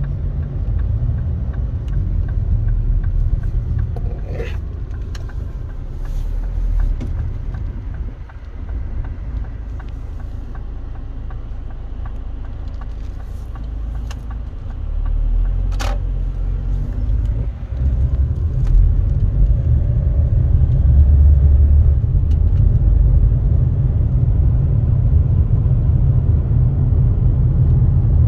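Seaside outdoor ambience: a low, uneven rumble that grows louder in the second half, with two short clicks, one about four seconds in and one about sixteen seconds in.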